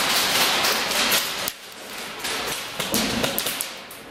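Airsoft guns firing in quick, irregular sharp snaps and clicks, dense at first, then scattered after a short lull.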